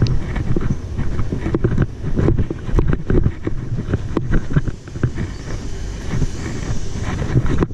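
Wind buffeting a body-worn camera's microphone, a steady low rumble, with irregular footsteps crunching on gravel and dirt.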